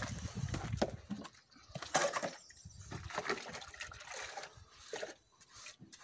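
Wet cement mortar being worked against a wall: irregular wet scraping and squelching with short knocks, the loudest about two seconds in.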